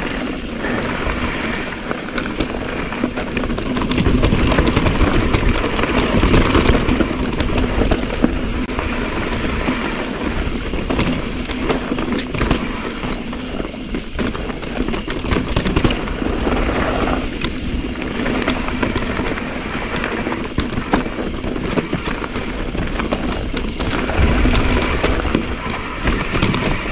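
Mountain bike rolling fast down a loose sandy and gravel trail: steady tyre noise over dirt and small loose rocks, with frequent knocks and rattles from the bike.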